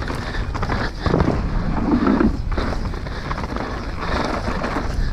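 Mountain bike clattering down a rough trail at speed, the frame and chain rattling under steady wind noise on the microphone, with a louder, rougher stretch from about one to two and a half seconds in.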